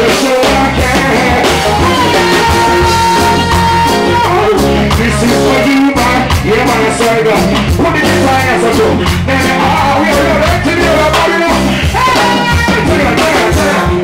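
A live reggae band plays drums, bass, electric guitar and keyboard, with a man singing over it into a microphone. It is loud and continuous, with a steady pulsing bass line underneath.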